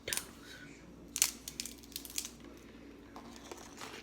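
Crab shell cracking and crunching as it is broken apart: a series of sharp, irregular cracks, the loudest about a second in.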